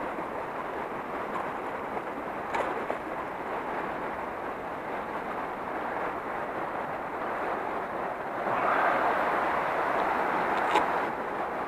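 Steady rush of river water, growing louder about three-quarters of the way through into splashing as a hooked asp is grabbed at the surface. Two sharp clicks, one early and one near the end.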